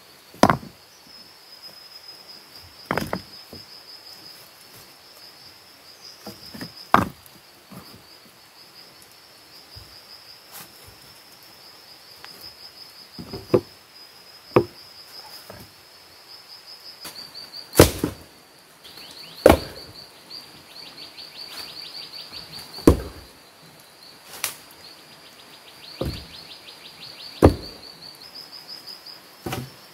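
Stones and logs being set down and knocked into place by hand: about a dozen separate knocks and thuds a few seconds apart, the loudest near the start and just before the middle. Under them, a steady high-pitched insect drone runs on, pulsing more strongly in the second half.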